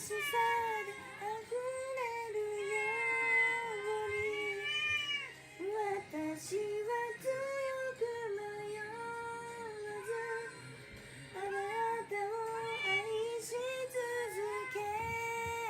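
A woman singing a slow melody in long held notes while a pet cat meows along with her.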